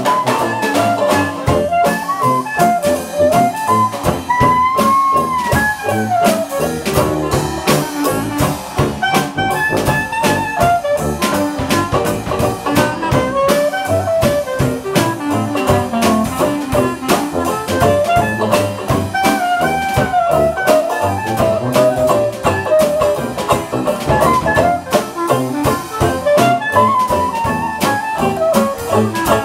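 Live traditional jazz: a clarinet plays a bending solo melody line over a drum kit keeping a steady swing beat, as an instrumental break after the sung chorus.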